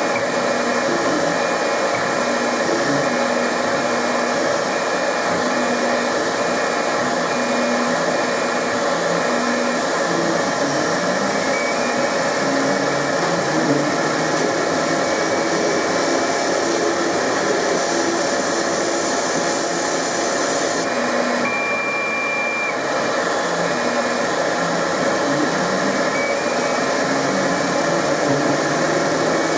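Denford Orac CNC lathe machining a part: a steady motor and cutting noise, with drive-motor tones that jump up and down in pitch every second or so as the tool moves. Around two-thirds of the way through, the high hiss drops briefly and a short, steady high tone sounds.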